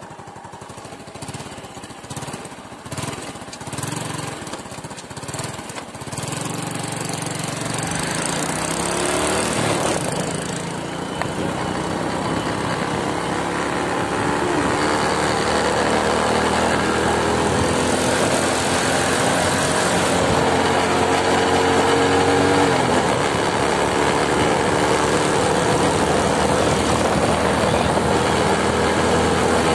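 A small motorcycle engine running on the move, rising in pitch as the bike picks up speed over the first ten seconds and dropping in pitch about 23 seconds in as it slows. Wind rushes over the microphone throughout, gusty at the start.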